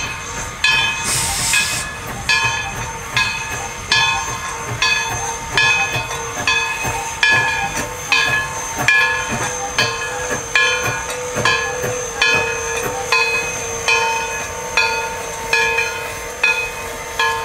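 Steam locomotive bell ringing steadily, a little more than one stroke a second, each stroke ringing on and fading. A brief burst of steam hiss about a second in.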